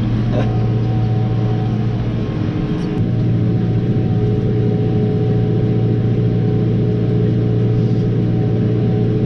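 Tractor engine running steadily under load, pulling a set of discs through dry ground; a constant low drone with a few steady higher tones above it.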